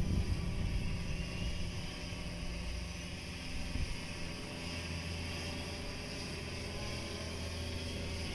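FIMI X8 SE quadcopter drone's propellers whirring steadily overhead as it hovers and descends, a hum of several steady tones with a thin high whine.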